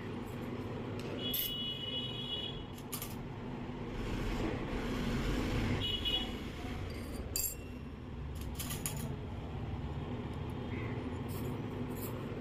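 Miniature stainless-steel toy spoons and spatula clinking as they are handled and set down on a concrete floor: scattered light metallic taps, a few with a brief high ring, over a steady low hum.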